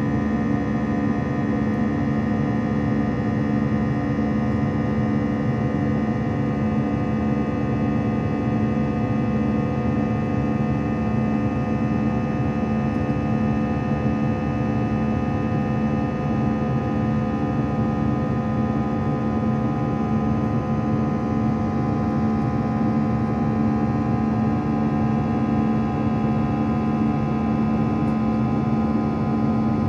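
Airbus A321's CFM56-5B turbofan engines heard inside the cabin in the climb: a steady engine buzz of many held tones, deepest and strongest in the low range, over the rush of air.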